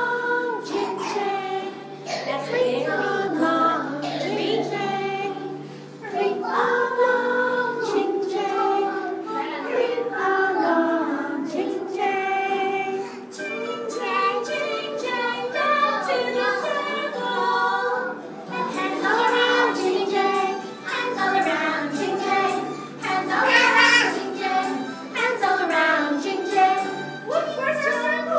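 A children's song: a group singing with music, children's voices among them, in phrases with short breaks between.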